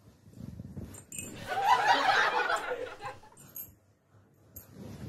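A person laughing, loudest for about a second and a half in the middle, fading before the end.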